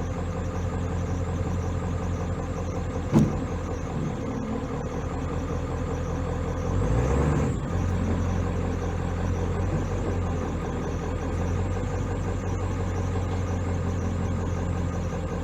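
Vehicle engine running steadily, with a sharp click about three seconds in and a brief swell in pitch and loudness around seven seconds.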